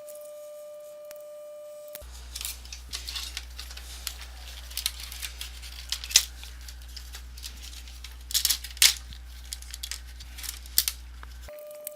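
Clicks, taps and rustles of a computer keyboard's plastic parts being handled and fitted into place, over a steady low hum. It opens with a steady high tone lasting about two seconds.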